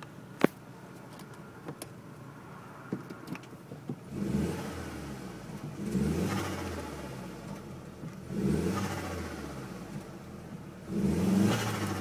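Audi A3 1.8T (AGU) turbocharged four-cylinder with an open induction kit, idling and then free-revved four times, each blip rising and falling away, with the air flutter on throttle lift that comes from a broken diverter (recirculation) valve. A sharp click sounds about half a second in.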